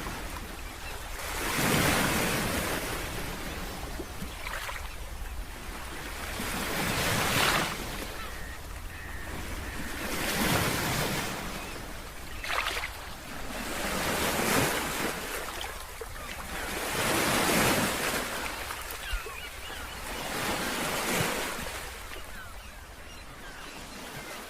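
Ocean surf: waves breaking and washing in, each surge of noise swelling and falling away about every three to four seconds, over a steady low rumble.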